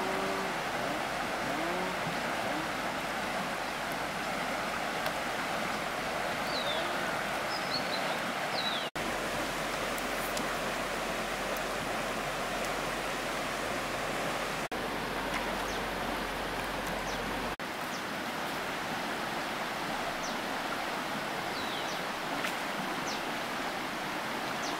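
Steady rushing water noise, with a few faint short high chirps now and then.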